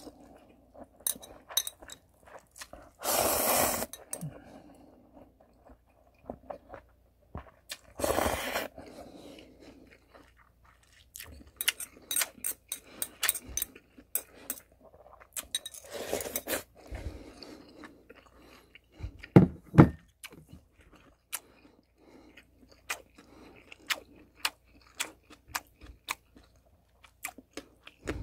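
A person slurping up cold instant ramen noodles in several long slurps, about three, eight and sixteen seconds in. Between them comes chewing with many small clicks.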